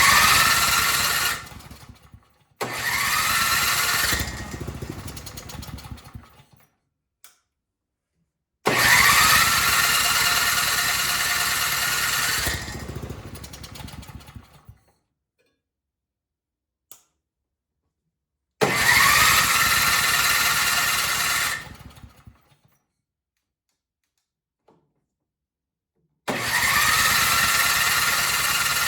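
A Craftsman snowblower's gasoline engine starts five times. Each time it revs up, runs for a few seconds, then fades and dies; the last run is still going at the end. The stalling comes from a failing carburetor fed by old gas, which the owner finds runs only on the high idle circuit and dies as soon as it drops off it.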